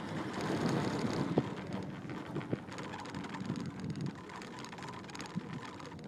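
Wind buffeting the microphone on a moving Doppelmayr detachable chairlift, over the lift's steady running hum, with two sharp clicks about a second and a half and two and a half seconds in.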